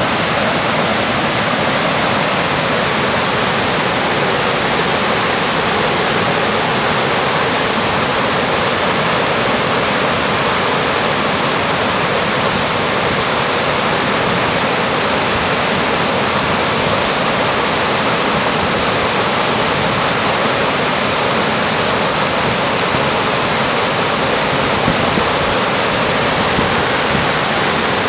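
Creek waterfall spilling over stepped rock ledges into a pool: a steady, even rush of falling water.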